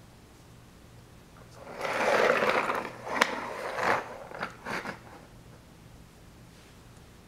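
Small plastic toy car pushed along a hardwood floor: a rolling scrape of its wheels lasting about a second, then several sharp clicks and knocks as it is handled and let go.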